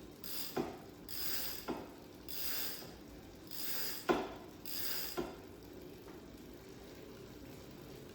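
Bicycle drivetrain during short partial pedal strokes: the rear freewheel hub ratchets in five half-second bursts about a second apart, with a sharp knock between some of them. The sound stops a little after five seconds in.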